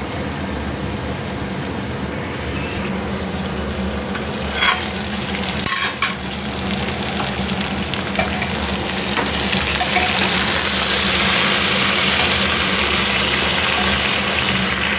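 Potatoes and eggplant sizzling in hot oil in a pressure cooker while a spatula stirs them, roasting with turmeric and chilli powder; a few sharp clicks of the spatula against the metal come about five to six seconds in. The sizzle grows louder in the second half.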